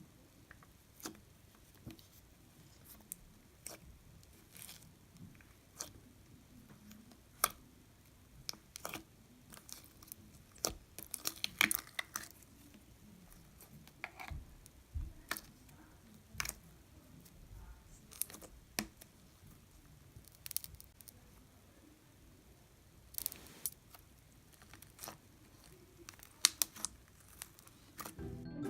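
Jelly cube slime with small melamine foam cubes being worked and squished: irregular sticky clicks and crackly pops, some louder than others.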